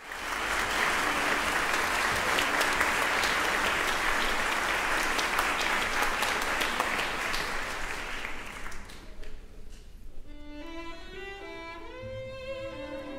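Audience applauding, the clapping dying away about nine seconds in; then a symphony orchestra begins to play, quieter, with bowed strings to the fore.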